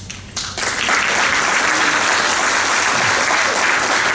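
Audience applause: a few scattered claps at first, then swelling about half a second in to full, steady clapping.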